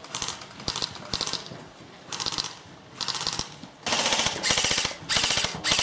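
Airsoft guns firing bursts of rapid automatic fire. The short bursts come in quick succession, and about four seconds in they become longer and louder.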